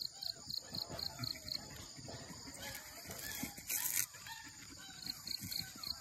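A dog ripping and chewing at dry coconut husk fibre, with a louder crackling rip about four seconds in. Crickets chirp in a steady pulse, about five a second, behind it.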